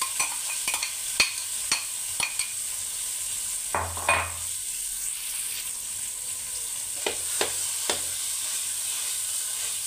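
Mashed sweet potato sizzling in hot ghee in a frying pan while a perforated metal spatula scrapes and knocks against the pan. The knocks come in quick runs during the first few seconds, again about four seconds in, and three more around seven to eight seconds in.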